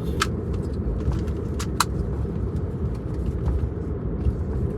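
Steady low road rumble of a moving car heard from inside the cabin, with a few sharp clicks.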